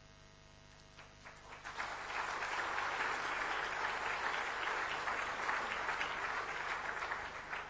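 Audience applauding: a few scattered claps about a second in swell into steady applause, which tails off near the end.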